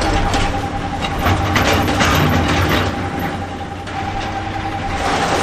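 Front loader (wheel loader) at work: its diesel engine runs with a low rumble and a steady high whine, with a rattling clatter in the first few seconds as it tips a bucket of sand into a dump truck.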